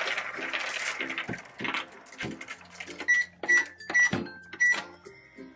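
Plastic clattering, then four button presses on a toy microwave, each a click with a short high beep.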